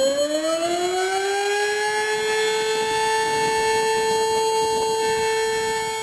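Civil defense siren winding up as an emergency alert alarm: its pitch rises over the first two seconds, then holds one steady, loud tone.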